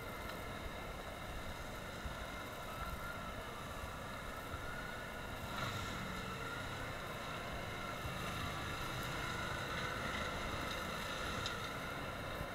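Tractor engine and rear-mounted mulcher running steadily while grinding through ground and brush. A whine wavers slightly in pitch over the steady machine noise.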